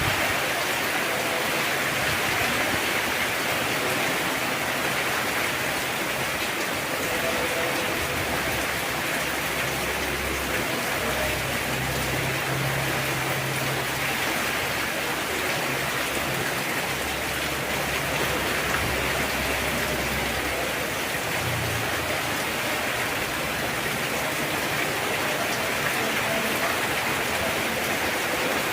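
Heavy rain pouring steadily, a dense even hiss of drops on surfaces, with a faint low hum coming and going in the middle.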